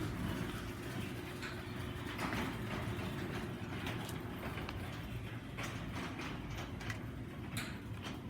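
Garage door opener running and closing the garage door after a keypad press: a steady motor hum and rolling rumble with scattered clicks and rattles.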